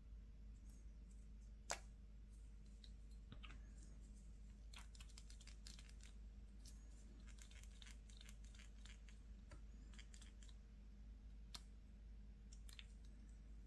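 Quiet handling of a plastic pen with a built-in hand-sanitizer sprayer: one sharp click about two seconds in, then faint rustling and small crackles of hands rubbing together, and a couple more light clicks near the end.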